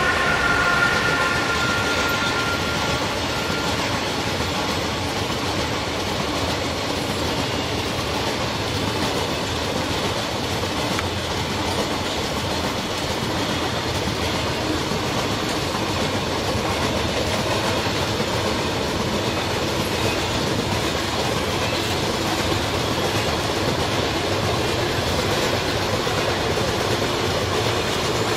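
Freight train rolling past close by: a steady rumble of steel wheels on the rails with clickety-clack from the wagons. In the first few seconds a high whine from the passing Transnet Class 22E electric locomotives fades away.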